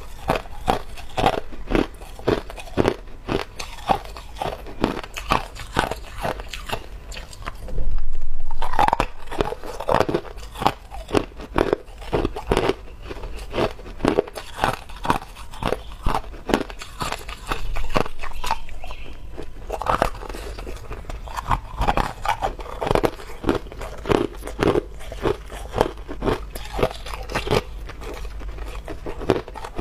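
Clear hard ice being bitten and chewed close to a lapel microphone: a steady run of sharp crunches and cracks, two or three a second, with a louder stretch about eight seconds in.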